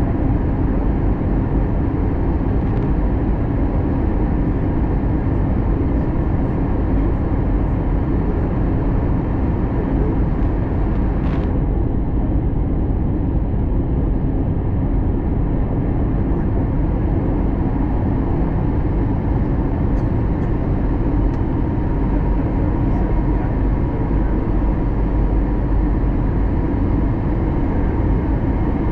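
Steady cabin noise of an Airbus A321 on approach, heard inside the cabin: the drone of its turbofan engines and the rush of air over the fuselage, with a steady low hum running through it.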